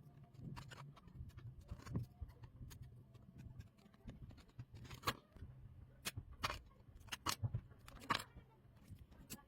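Irregular clicks and taps of small hard parts being handled, the loudest about five and eight seconds in, over a low steady hum.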